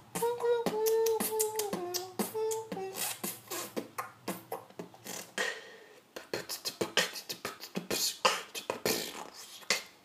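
Mouth beatboxing by one man. For about the first three seconds a hummed melody runs over the percussive mouth beats. After that the beat goes on alone as quick clicks and hiss-like hi-hat strokes.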